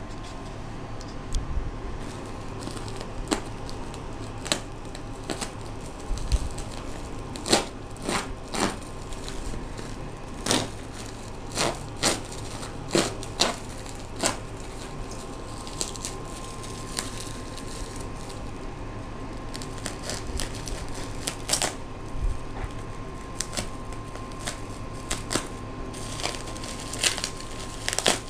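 Plastic mailer bag being torn open and its bubble-wrap contents crinkled and pulled about by hand: irregular sharp rips and crackles of plastic.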